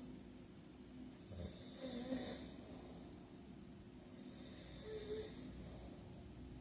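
A sleeping man breathing softly between snores: two quiet, airy breaths with a faint snore in them, about a second and a half in and again near five seconds.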